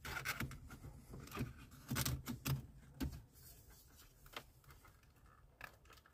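Plastic shift-gate bezel being lifted off a Jeep Cherokee's center console and handled: light clicks, scrapes and rubbing of plastic trim, with a few louder knocks in the first three seconds, then only faint ticks.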